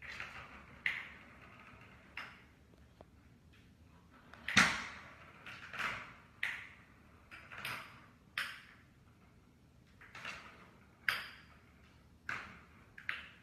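Catit Fireball, a plastic ball, clacking and rolling inside the plastic Catit Senses 2.0 Play Circuit track as a cat bats at it: irregular sharp knocks about one a second, each ringing briefly, the loudest about four and a half seconds in.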